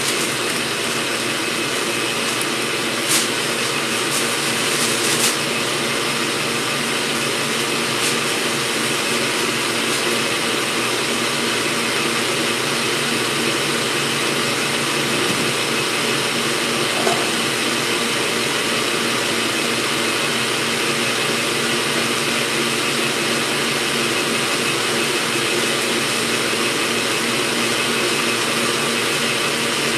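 Stand mixer running steadily, whipping egg-white protein powder and water into a batter that is starting to stiffen. A few brief crinkles of parchment paper about three to five seconds in.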